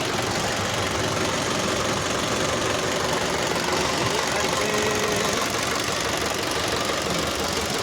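Sonalika 750 tractor's diesel engine running steadily.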